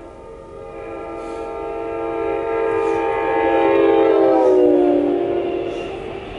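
A MARC commuter train sounding one long multi-note horn chord as it passes, the chord dropping in pitch as the cab goes by (Doppler shift). The horn stops near the end, leaving the rushing noise of the passing cars.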